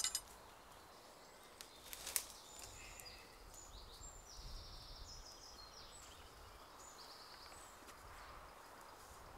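Quiet outdoor ambience with a bird singing faintly in short high phrases from about two and a half seconds to eight seconds in, and a couple of light knocks about two seconds in.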